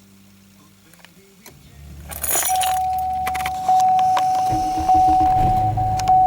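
2002 Pontiac Grand Am's 2.2 L Ecotec four-cylinder engine being remote-started from the key fob: a low hum, then it cranks and catches about two seconds in and settles into a steady run with a steady whine over it.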